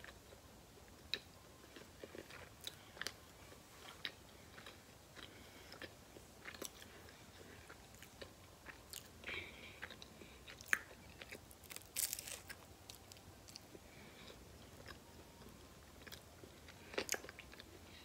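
A person chewing and biting a Hot Pocket, heard up close: soft crunches and wet mouth clicks scattered throughout, with a few louder crunches in the second half.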